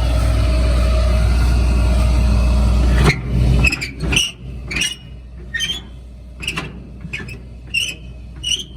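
Farm vehicle engine running steadily with a deep drone, cutting off abruptly about three seconds in. After that come about eight short, high chirps, one every half second to a second.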